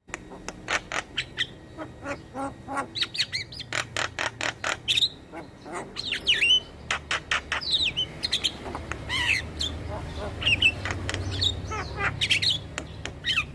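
Javan myna singing a rapid, chattering song of sharp clicks, harsh squawks and short whistled glides.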